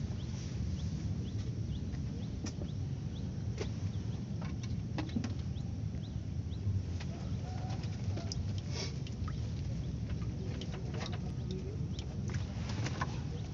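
Outdoor background at the water's edge: a steady low rumble with scattered light ticks and a few brief bird chirps.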